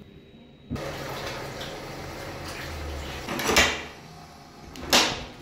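Water running from a washbasin tap as hands are washed, starting suddenly near the start. Two short, louder clunks come at about three and five seconds in.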